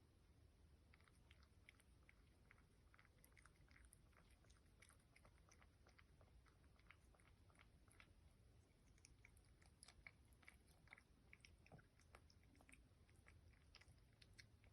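A cat chewing wet food from an automatic feeder's tray, heard faintly as a scatter of small, irregular clicks and smacks.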